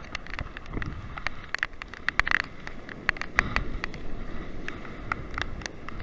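Nylon rain jacket rustling and crinkling as it is handled right at the microphone: irregular sharp crackles over a low rumble of wind and surf.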